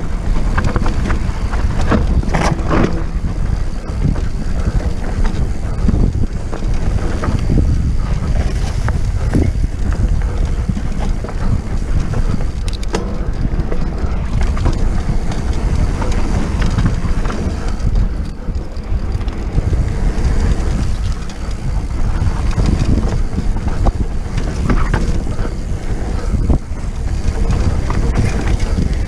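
Wind rumbling on the microphone of a mountain bike descending dirt singletrack, with tyres crunching over dirt and rock and the bike rattling and knocking over bumps throughout.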